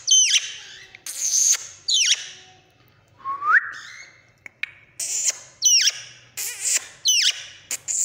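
Indian ringneck parakeet giving a run of loud, shrill screeches, most of them sharp downward sweeps from very high pitch, about one every half second to second. A single rising whistle comes a little past three seconds in.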